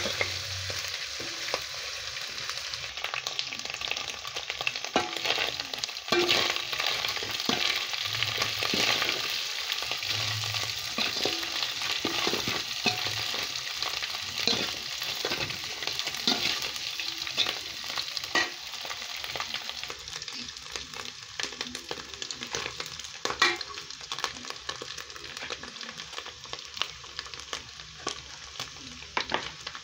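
Small fish sizzling as they fry in a metal pot, with a metal spoon scraping and clicking against the pot as they are stirred. The sizzle grows softer after about twenty seconds.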